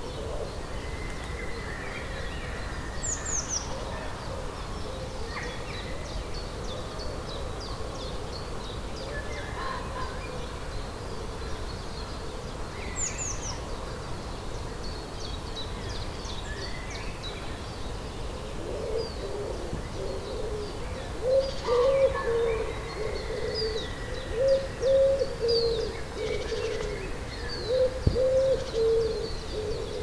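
Woodland birds calling: thin, high songbird notes and quick falling whistles throughout, with low, wavering hooting calls that grow louder and come in repeated phrases over the last third.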